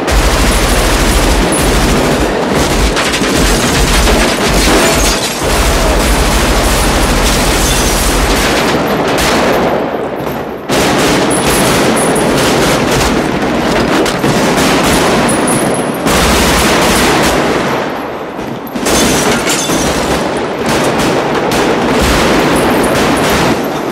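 Sustained automatic rifle fire, long dense bursts from several guns overlapping almost without a break, with short lulls about ten and eighteen seconds in.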